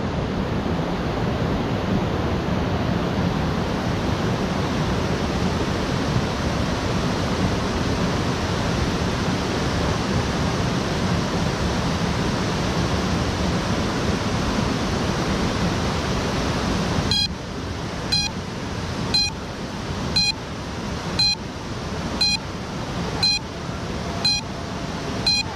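A steady rushing noise. About two-thirds of the way through it drops a little, and a short, high electronic beep starts repeating about once a second.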